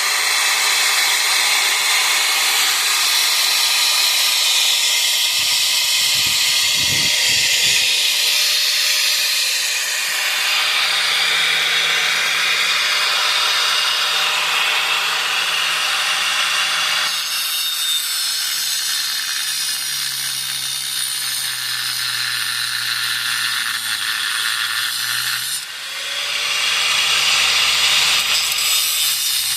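Power tool cutting steadily through a rusted, seized brake caliper bolt, with a continuous grinding hiss of metal being cut. It falters briefly near the end before cutting on.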